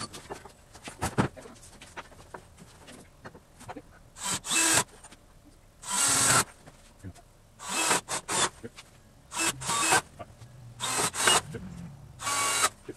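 Cordless drill driving screws into a wooden frame in about six short bursts, each about half a second long, with pauses between.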